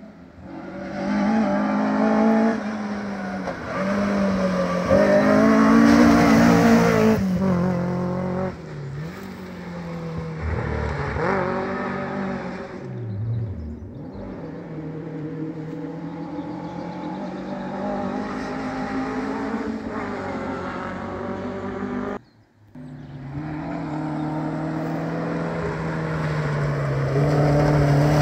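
Small 1400cc-class rally car engines revving hard on a gravel stage, the pitch climbing and falling through gear changes as the cars come through. The sound breaks off suddenly about 22 seconds in, then another engine builds up, loudest near the end.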